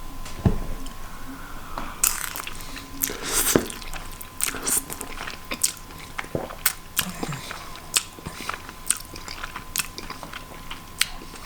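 Close-miked eating of soft noodles: a mouthful taken and chewed, with repeated wet clicks from the mouth throughout.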